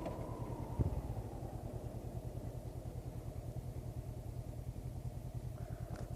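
Honda CB500X's parallel-twin engine, its note falling over the first couple of seconds as the revs drop, then running steadily at low revs with an even pulsing beat. A single short knock about a second in.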